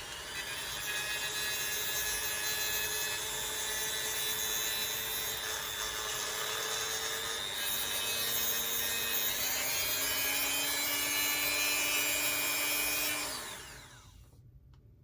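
Dremel rotary tool with a grinding stone running at high speed, its pitch shifting a little partway through. It is switched off about thirteen seconds in and winds down with a falling whine.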